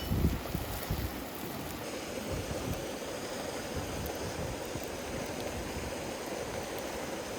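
Steady rushing of a river's flowing water, with low wind thumps on the microphone in the first second or so.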